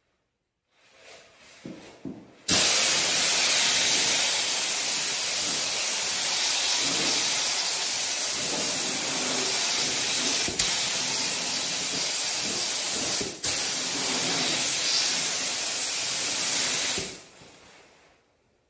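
Gravity-feed paint spray gun spraying a flow coat of clear coat: a steady hiss of compressed air and atomised clear that starts about two and a half seconds in, dips briefly twice, and stops near the end.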